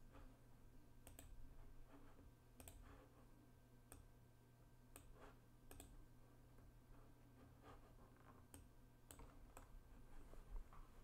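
Faint, scattered clicks at a computer, about one a second and irregular, over a low steady hum.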